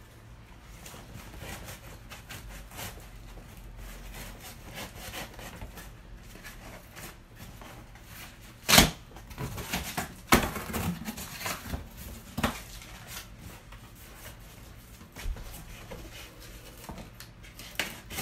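Cardboard box being opened by hand: tape and cardboard flaps pulled and rubbed, with scattered small clicks. Two sharp knocks stand out, about nine and ten and a half seconds in, the first the loudest.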